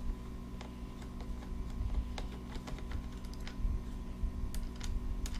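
Irregular light clicks and taps of a screwdriver and the drone's plastic leg parts being handled while screws are undone, over a steady low hum.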